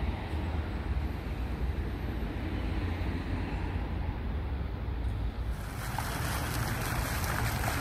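Outdoor street ambience: a steady low rumble of wind on the microphone and passing traffic. About five and a half seconds in it changes to the steady splashing hiss of a fountain's water jets.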